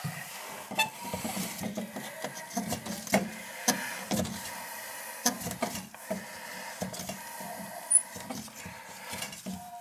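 Scattered small clicks and rubbing from a toilet's angle-stop shutoff valve being turned and handled with a gloved hand. The valve's packing is loose and leaking at the packing nut.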